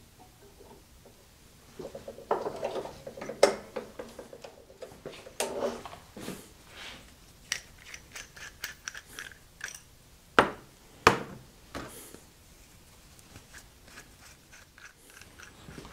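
Small metal tool holders clicking and knocking together on a workbench, with plastic bags rustling, as ER16 extension-rod collet chucks are handled. The clicks are irregular, with a few sharper knocks about three and a half seconds in and again around ten and eleven seconds.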